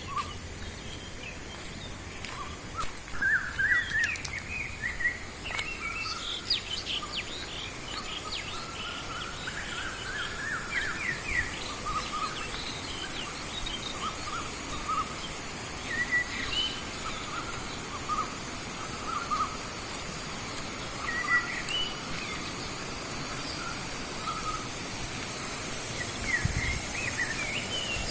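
Birds chirping with many short, repeated calls, busiest in the first half, over a steady faint high hiss.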